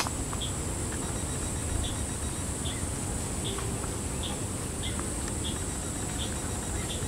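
Steady high-pitched drone of insects, with a short high chirp repeating about every two-thirds of a second over a low background rumble.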